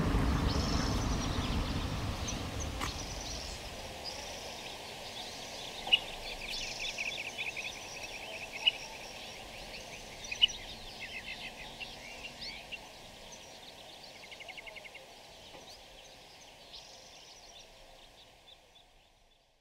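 Outdoor ambience with songbirds singing short chirps and quick trills. It fades out gradually over the whole stretch.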